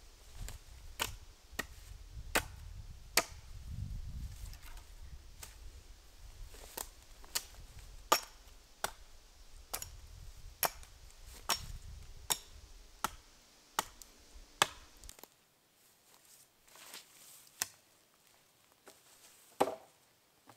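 Chopping into a wooden pole by hand: sharp wooden knocks a little more than once a second that stop about fifteen seconds in, followed by a few scattered knocks.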